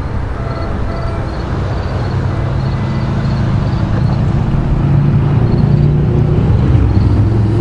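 Diesel locomotive of a New Jersey Transit train approaching, its low engine hum growing steadily louder.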